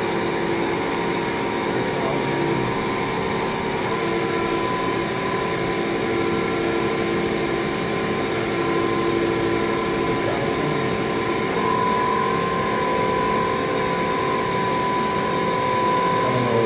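Mori Seiki NT 4300 DCG turning and milling center running, its milling spindle turning a tool amid spraying coolant: a steady machine hum with a high whine that comes in about four seconds in and grows louder around twelve seconds.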